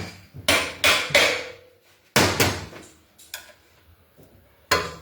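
Hammer blows on a motorcycle's front wheel spindle that is stuck tight in the fork, to drive it out: about six sharp metallic knocks at uneven intervals, one leaving a short ring.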